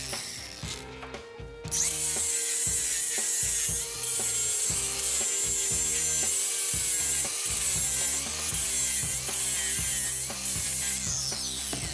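Cordless angle grinder with a Walter FlexSteel flap disc grinding a steel hinge joint. After a short lull it bites into the metal about two seconds in, a loud, steady grinding hiss with a few brief dips as the disc lifts off, then it spins down with a falling whine near the end.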